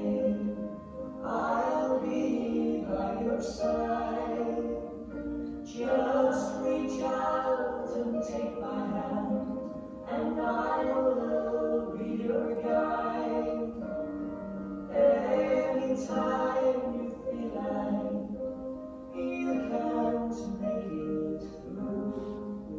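Choir singing a piece of sacred music, sung in phrases a few seconds long with brief breaths between them.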